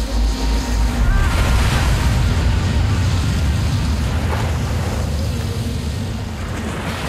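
Ocean surf breaking against sea cliffs: a steady wash of waves and wind over a deep low rumble.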